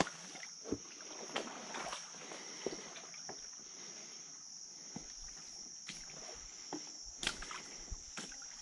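Wooden dugout canoe being paddled through flooded vegetation: scattered light knocks and rustles of paddle, hull and plants. A steady high-pitched insect drone runs underneath.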